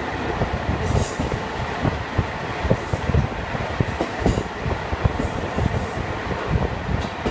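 Cabin sound of a KiHa 40 diesel railcar running along the line: a steady rumble with irregular clicks and knocks from the wheels and track. Short high hisses come in several times, about a second in, around three and four seconds in, and near six seconds.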